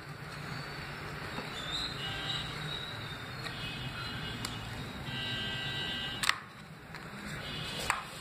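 Cardboard packaging being handled: the fitness-tracker pod is pried and scraped out of its cardboard holder, with two sharp clicks about six and eight seconds in.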